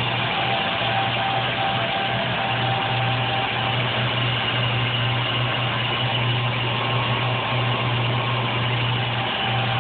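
Sea Ray 415's starboard inboard engine running steadily at idle, heard up close in the engine room: a constant low hum with a steady mechanical noise over it. It runs smoothly, with no misses or knocks.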